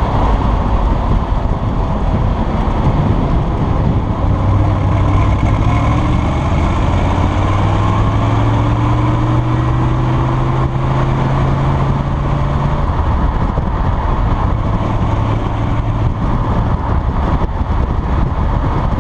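1965 Corvette Sting Ray's V8 engine and exhaust under way while driving. The engine note climbs slowly in pitch for several seconds, then drops about thirteen seconds in. A steady rushing noise runs underneath.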